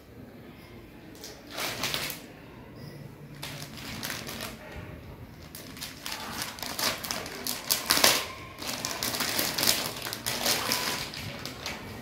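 Packaging being handled: plastic and paper crinkling and rustling in irregular bursts, busier in the second half and loudest about eight seconds in.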